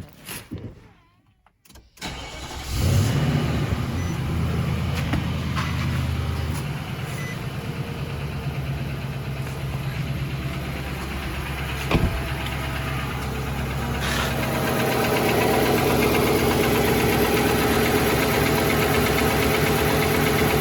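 Nissan Titan V8 cold-started about two seconds in, catching at once and running at a fast idle that eases after a few seconds. A single sharp click comes near the middle, and the idle grows fuller and louder about three-quarters of the way through. The idle carries a slight tick or knock that the dealer traced to piston slap in cylinder 7.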